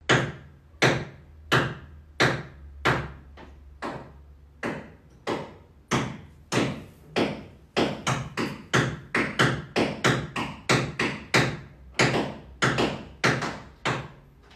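A run of sharp knocks, spaced evenly at first and then coming faster and faster, to about three a second near the end.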